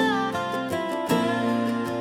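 Instrumental country gospel music: acoustic guitar strumming with sustained chords, a bending, sliding lead line about a second in, no singing.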